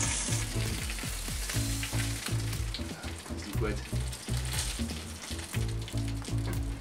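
Rack of pork sizzling and crackling on a kamado grill's grate with the lid open, a fine run of small pops, under background music with a steady bass line.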